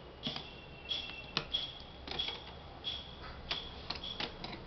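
About a dozen sharp, irregular clicks and taps, each with a brief high ring: small plastic and metal parts of a Dell laptop being handled and fitted during repair.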